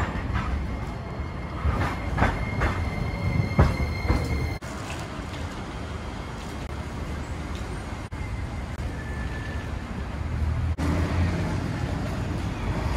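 Hiroshima Electric Railway 5100-series Green Mover Max low-floor tram pulling slowly into the platform. For the first four seconds there is a series of knocks from the wheels on the track and a thin, steady wheel squeal. After that comes a steadier running hum.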